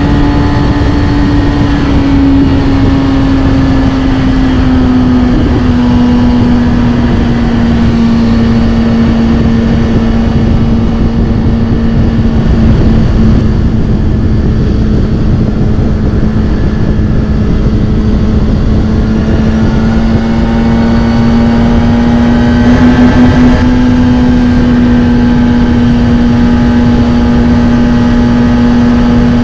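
Kawasaki Ninja ZX-6R inline-four engine through a Scorpion titanium exhaust, running at steady revs while being ridden. The note eases down slightly about five seconds in, then climbs gently near the end.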